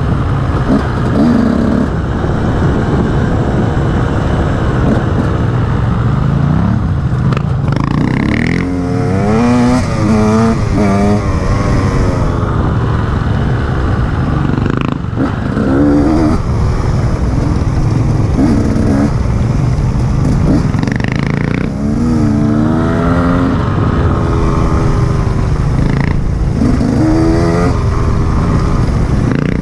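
Enduro dirt bike engine pulling up in pitch and dropping back again and again as it accelerates and shifts on the trail, over a steady low rumble.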